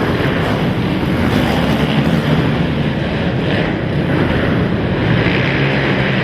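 Several racing quad (ATV) engines running together in a loud, steady, rough drone.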